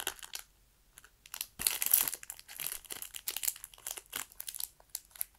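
Plastic snack wrapper crinkling as it is handled and torn open, with a dense burst of crackling a little over a second and a half in and scattered crackles around it.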